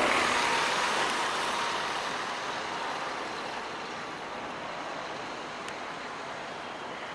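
EMD GT38ACL diesel-electric locomotive passing. Its noise is loudest at the start and fades steadily as it moves away.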